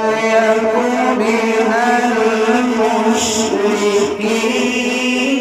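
A man's voice reciting the Quran in melodic tilawat style into a microphone, in one long phrase of held notes that waver and slide in pitch, dipping briefly about four seconds in.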